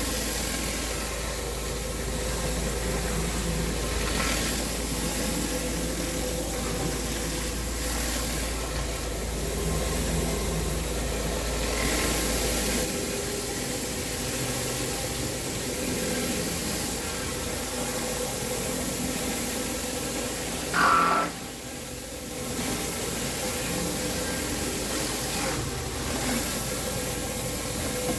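Engine-driven pressure washer running, its water jet hissing steadily against concrete. A brief, louder sound with a short pitched tone cuts in about two-thirds of the way through.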